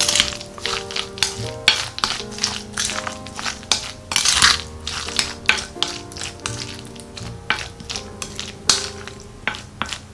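A spatula stirring mayonnaise-coated macaroni salad in a glass bowl: wet mixing sounds with irregular scrapes and taps against the glass, several a second. Background music plays underneath.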